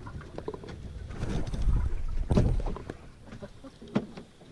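Low rumble of wind and water around a small fishing boat, swelling in the middle, with a few sharp knocks of the knife and hands on a wooden cutting board, the loudest about halfway through and another near the end.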